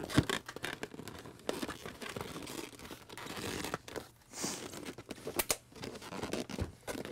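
A tight cardboard slipcover being worked off a large box: cardboard scraping and rubbing against cardboard, with short knocks and taps as the box shifts, the loudest a sharp knock just after the start.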